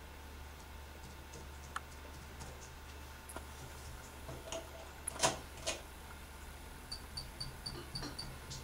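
Laptop keyboard keys tapped by a small child: faint scattered clicks, one sharper click about five seconds in. Near the end comes a quick run of short high-pitched pips, about four a second.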